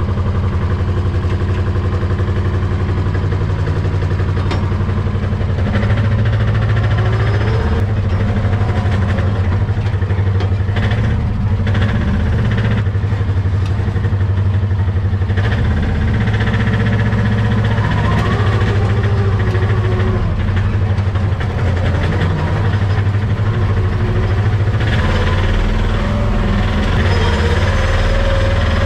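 Small two-wheel tractor's engine running steadily under load as it drives along a rough dirt track, a little louder from about six seconds in.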